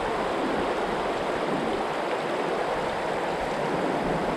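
River water rushing steadily over a shallow, rocky riffle.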